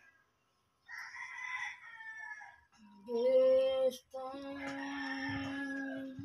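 A rooster crows once, its call falling at the end, then a woman sings into her phone along to a karaoke track, holding long, steady notes.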